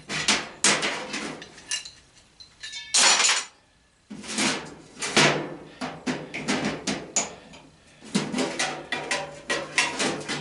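Metal faucet parts clattering and clinking as they are handled and sorted, with many sharp knocks and a brief metallic ring about three seconds in.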